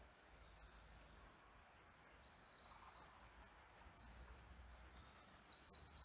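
Faint bird song: a small songbird's high, quick trilled phrases, repeated from about two seconds in over a faint steady hiss.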